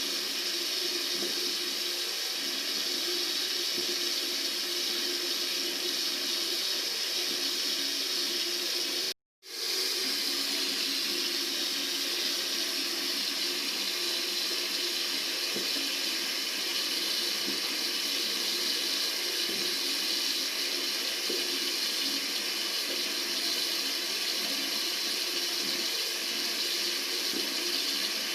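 Tap water running steadily, an even hiss. About nine seconds in it cuts out completely for a split second, then resumes.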